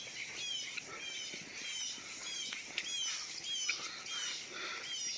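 Small bird chirping over and over: a string of short, high, falling notes, about two or three a second.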